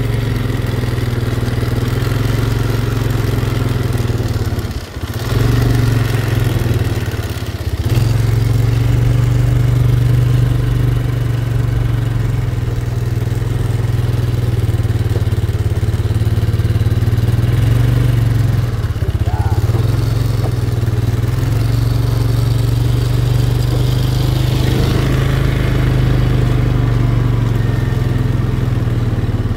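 Polaris Magnum ATV engine running steadily under way, heard from on board the machine. The engine sound dips briefly about five seconds in and again near eight seconds.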